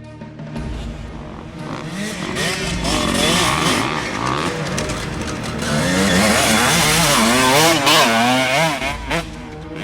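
Motocross bike engine revving up and down over and over as the throttle is worked, growing louder to its loudest about eight seconds in, then falling away near the end.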